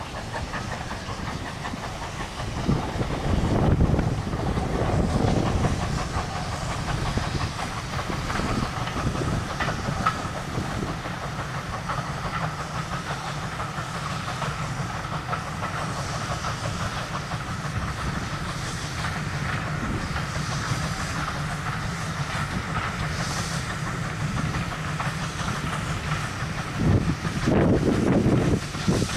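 Steam train passing: Port Talbot Railway/GWR 0-6-0ST saddle tank No. 813 working a rake of coaches, with steam from its safety valve and wheels running over the rails. Louder stretches come about three seconds in and again near the end.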